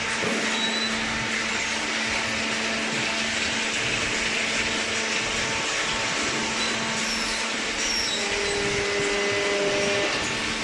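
Industrial cardboard baler running: a steady mechanical noise with a constant hum, and a short added tone about eight seconds in.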